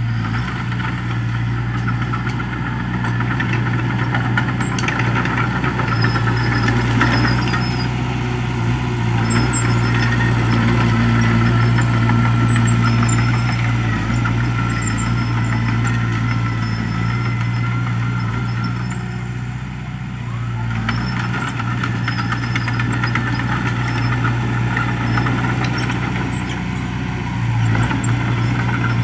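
Small Komatsu crawler bulldozer at work: its diesel engine runs steadily, growing louder around the middle, easing off a little after about 19 seconds and picking up again near the end, with rattling from the moving machine at times.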